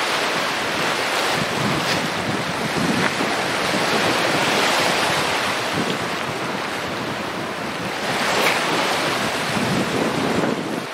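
Sea surf washing onto a rocky, pebbly shore in a steady wash that swells gently, with wind buffeting the microphone.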